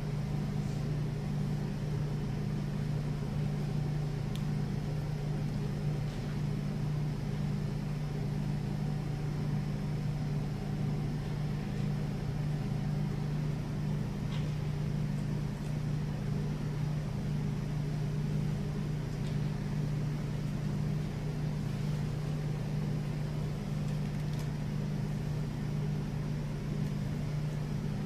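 Room tone of a large hall: a steady low hum, with a few faint clicks.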